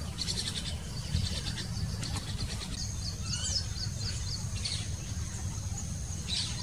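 Baya weavers chirping and chattering at their nest colony: quick high chirps, then from about three seconds in a thin, steady, high buzzing note with fast ticks over it. A steady low rumble lies underneath.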